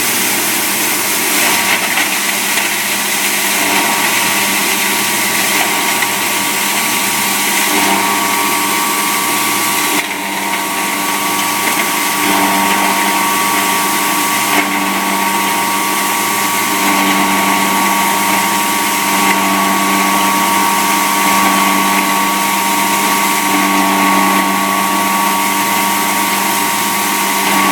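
Hammer mill wood-chip crusher with a transport fan, driven by a 30 kW electric motor, running steadily: a loud, even rushing noise with a steady hum and whine, dipping briefly about ten seconds in.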